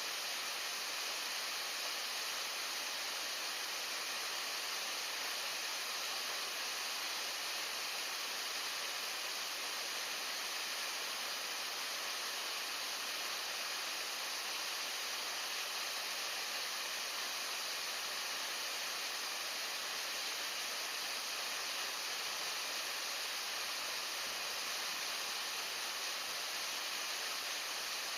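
Steady, even rushing hiss of a trout stream's running water.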